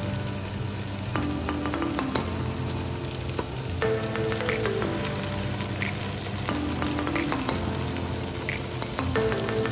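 Chickpeas and sliced onions frying in oil in a stainless steel pot, a steady sizzling hiss. A soft melody of repeating falling notes runs underneath.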